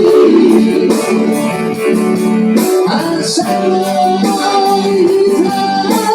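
Music from a song, with long held notes.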